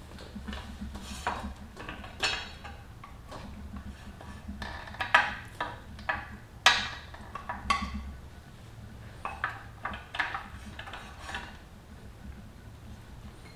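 Irregular metallic clinks, taps and small rattles of tools and hardware being handled at a motorcycle's front wheel hub and fork during reassembly, with a few louder knocks a little past the middle.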